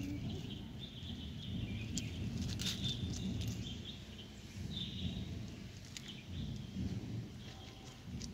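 Outdoor ambience: small birds give short, scattered chirps over a steady low rumble.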